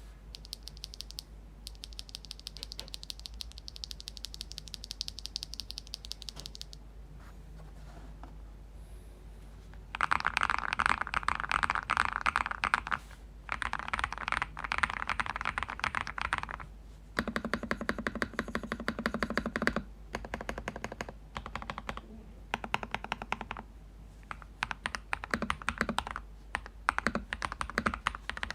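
Fast typing on a Cheap60 EX 60% mechanical keyboard with lubed Crystal Red linear switches, its PC plate backed with layers of double-sided tape and a thin plastic sheet in place of foam, giving a firm, thocky keystroke. The keys go in quick runs broken by short pauses, lighter and brighter at first and much louder from about ten seconds in.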